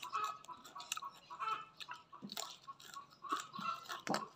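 Close-up chewing and biting of a mouthful of leafy greens, with a few sharp clicks mixed in.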